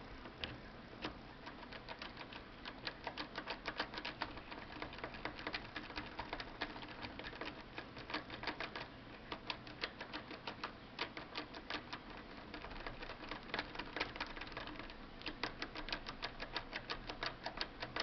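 Metal tubular lock pick clicking and rattling in a tubular lock as it is wiggled back and forth. The lock's pins are binding and releasing against the pick's feelers. Light irregular clicks, several a second, come in uneven runs.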